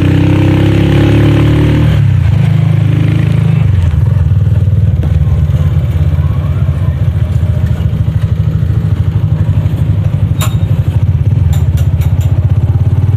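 Motorcycle engine of a tricycle (motorcycle with passenger sidecar) running steadily on the move, heard from inside the sidecar as a loud, low pulsing drone. A few sharp rattling clicks come near the end.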